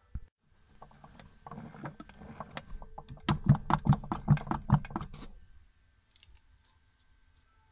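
Metal clicking and knocking from an A904 automatic transmission's output shaft being turned and rocked by hand in its case, building to a quick run of sharp knocks about four a second, then stopping.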